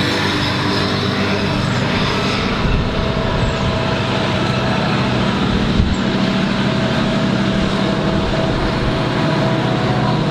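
Indian Railways diesel locomotive engine running: a steady low drone with a hiss above it, and a faint knock about three seconds in and another about six seconds in.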